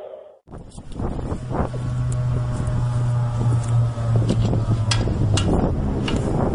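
A loud, steady, low droning hum with fainter higher tones above it, the eerie kind of noise reported as strange sounds from the sky. Wind buffets the microphone, and the drone dips a little lower about five seconds in.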